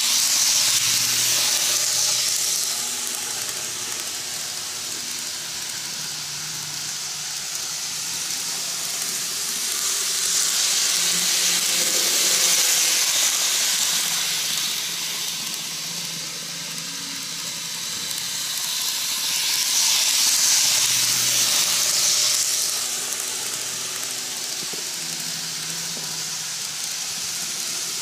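N-gauge model trains (Kintetsu 22600, 5200 and 1201 series) running on plastic-roadbed track: a steady hissing rattle of wheels and motors that swells and fades three times as trains pass close by, about a second in, around twelve seconds in and around twenty-one seconds in, with a faint low hum under it.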